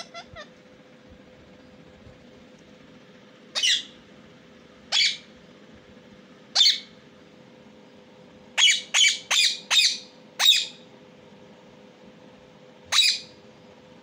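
Rose-ringed parakeet calling: a few soft chirps right at the start, then short, sharp, high screeches, single ones a second or more apart, a quick run of five about two-thirds of the way through, and one more near the end.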